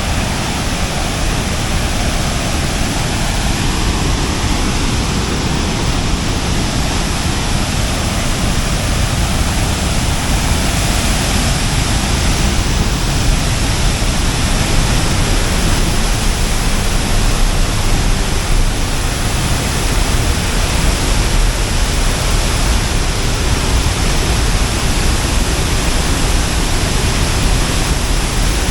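Water released from a dam pouring down as a heavy waterfall, a loud, steady rushing noise.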